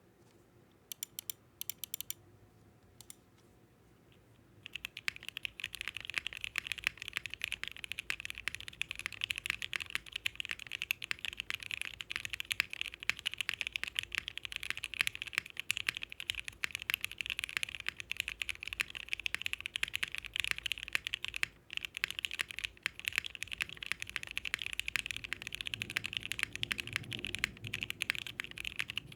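Bakeneko mechanical keyboard with lubed, filmed Gateron Ink switches and 8008 keycaps on an FR4 half-plate and standard PCB. After a few scattered key clicks it is typed on continuously and fast from about five seconds in, with a brief pause about three-quarters of the way through.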